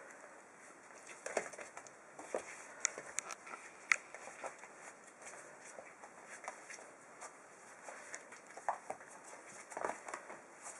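Five-week-old puppies scampering and tussling on newspaper and a wooden floor: scattered light paw patter, claw clicks and rustling paper.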